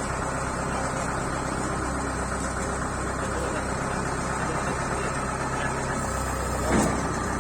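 Kubota DC-70 combine harvester's diesel engine running steadily, with one short, louder sound near the end.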